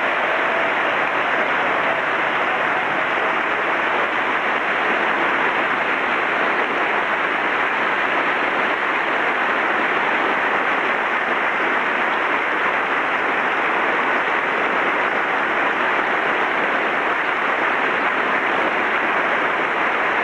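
Sustained applause from a large crowd, a steady, dense wash of clapping.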